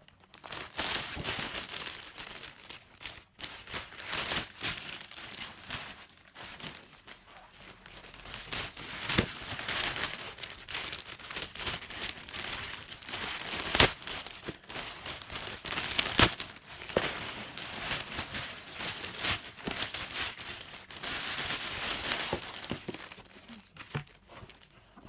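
Packaging being crumpled and torn open by hand: a steady crinkling rustle with a few sharp snaps, loudest about 14 and 16 seconds in.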